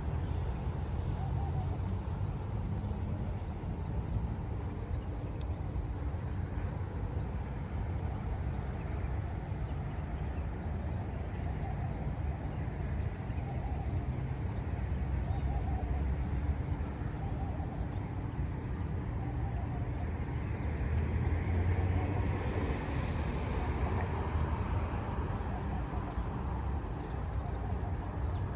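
City street ambience: a steady low rumble of road traffic, swelling as a vehicle passes about three-quarters of the way through.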